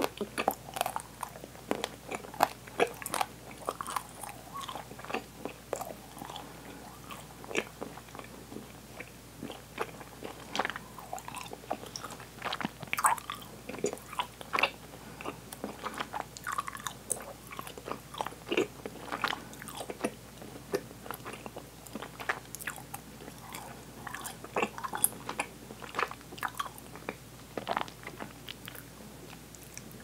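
Open-mouthed chewing of sticky Swedish candy, with irregular wet smacks and clicks as the sweets stick to the teeth.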